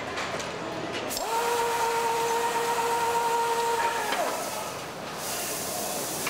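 Air-powered assembly tool whining: about a second in it spins up to a steady pitch, holds for about three seconds, then winds down. A hiss follows near the end, over steady factory background noise.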